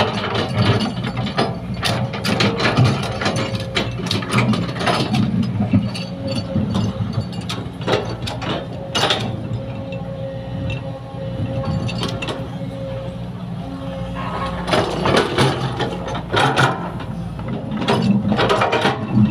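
Sumitomo hydraulic excavator's diesel engine running steadily, with repeated clanks, knocks and rattles from the bucket digging and dumping soil. The knocks come in busy clusters, with a calmer stretch in the middle.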